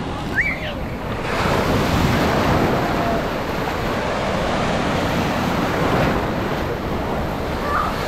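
Large sea waves breaking on a beach in a continuous wash of surf that swells and ebbs, with wind buffeting the microphone.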